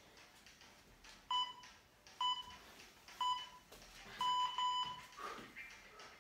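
Workout interval timer beeping a countdown: three short electronic beeps about a second apart, then two longer beeps close together, signalling the switch to the next exercise.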